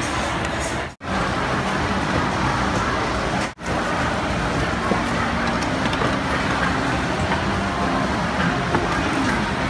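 Steady roadside background din of traffic noise with faint voices. The sound cuts out sharply twice, about a second in and again at about three and a half seconds.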